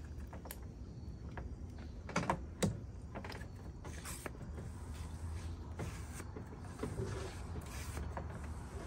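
Small hand-held fluid transfer pump drawing old coolant out of a van's plastic expansion tank through a hose: a steady low hum with a few light clicks and knocks, the tank nearly drained.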